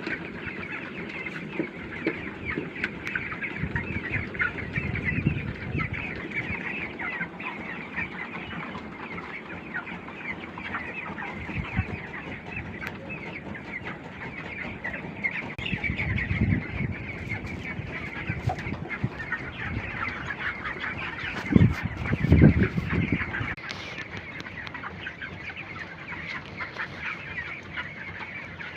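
A large flock of broiler chickens calling continuously, a dense mass of overlapping chirps and clucks. Louder, lower rushes of noise come through several times, the loudest around 21 to 23 seconds in.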